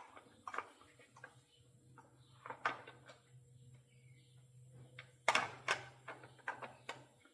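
Chainsaw side cover being handled and fitted back over the bar and chain: a series of irregular clicks and knocks, the loudest a pair of knocks about five seconds in.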